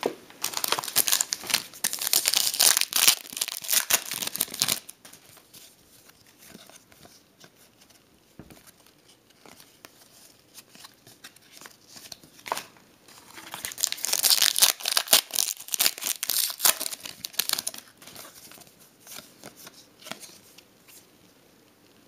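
Basketball card pack wrapper being torn open and crinkled, in two loud bouts, the second about halfway through, with quieter rustling between.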